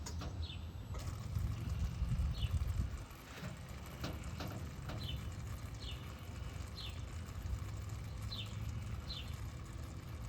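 Car engine idling, a low steady rumble that is heavier for the first three seconds and then settles lower, while the fuel-tank hoses are watched for a leak. A bird chirps repeatedly over it in short falling notes.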